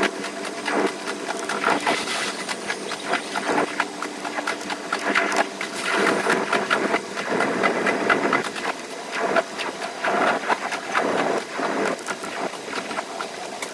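283 series electric express train running on the rails, its sound played at five times normal speed: a fast, dense clatter of rail joints and running gear, with a steady hum through the first half.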